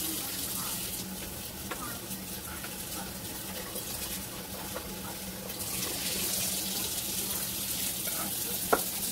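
Kitchen tap water running into the sink as cooked pasta is drained and rinsed with cold water. The flow is heavier in the first second and again from about halfway on, with a few light knocks and one sharper knock near the end.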